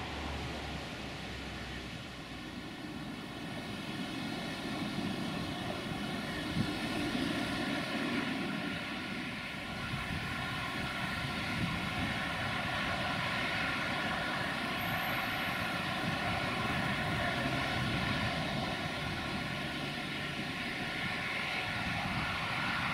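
LE 5100 kW electric locomotive approaching slowly at the head of a freight train: a steady whine from its machinery over the rumble of wheels on rail. It grows louder over the first ten seconds or so, then holds.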